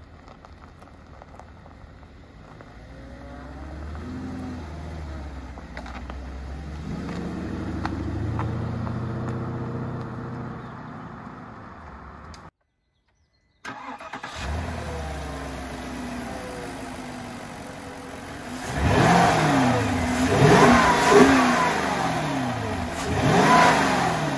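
Porsche Cayenne S's 4.5-litre V8 heard through its exhaust: the SUV drives off down the road, its engine note swelling and then easing away. After a short break it runs steadily, then is revved several times in quick rises and falls near the end, the loudest part.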